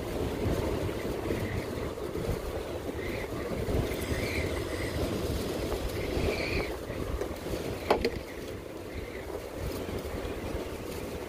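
Strong wind buffeting the microphone, a steady low rumble, with a single sharp click about eight seconds in.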